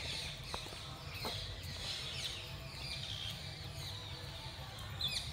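Small birds chirping and twittering repeatedly in short, quick notes, over a steady low rumble.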